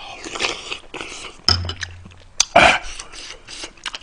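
Close-up eating sounds: a person chewing and slurping food right at the microphone, with wet lip smacks and clicks. A louder slurp comes about two and a half seconds in.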